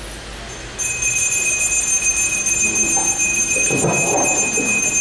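A steady, high-pitched electronic whine from the microphone and PA system, several pitches at once, starts abruptly about a second in and holds, while the microphone is being handled. A short patch of handling rustle comes near four seconds.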